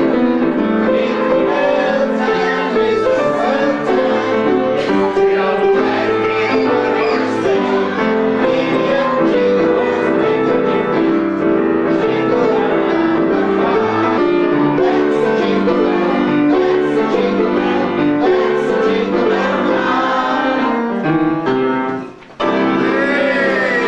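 Piano playing a Christmas carol with a group of voices singing along. Near the end the sound cuts out for a moment and comes back with voices over the music.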